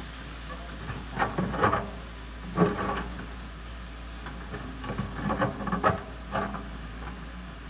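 Doosan DX140W wheeled excavator's diesel engine running steadily under load while its bucket scrapes and knocks against rock and soil in short, irregular bursts.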